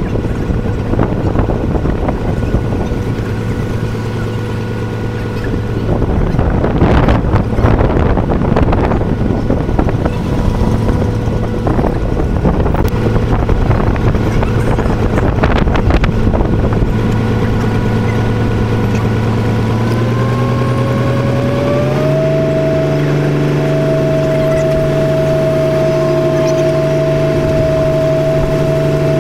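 A boat engine runs with a steady hum. Its pitch rises about two-thirds of the way through and then holds at a higher, steady note. Irregular rushing noise comes and goes in the first half.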